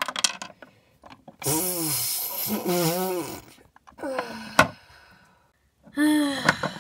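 A young person's voice making two long, breathy, drawn-out nonverbal noises, a voice-acted groan, with a sharp click a little later as a toy figure is handled.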